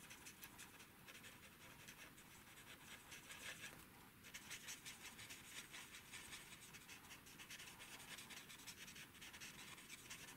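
Faint, quick scratching strokes of a Stampin' Blends alcohol-marker tip rubbing over white cardstock as a stamped image is coloured in.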